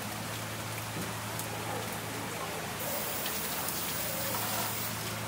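Tap water pouring and splashing into a stainless steel sink full of live ayu (sweetfish) as they are grabbed by hand. The hiss brightens from about three seconds in, when the water runs over the handful of fish. A steady low hum runs underneath.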